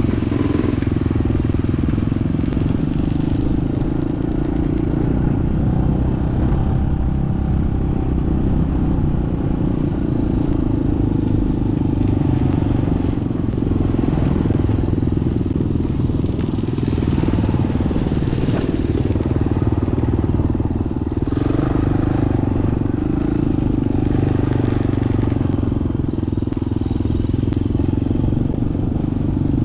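Four-stroke dirt bike engine running steadily, its revs rising and falling a little.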